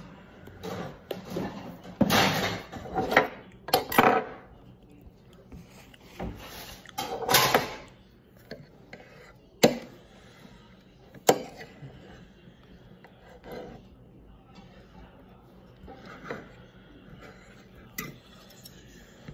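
Tableware handling: a few seconds of rubbing and scraping, then sharp clinks of metal cutlery against a plate, the two loudest about a second and a half apart in the middle, with lighter taps after.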